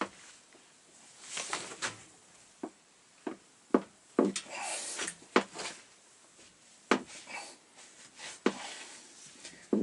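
Irregular knocks and clicks, with short scrapes between them, as a quick-grip clamp and its parts are handled and worked on the bench.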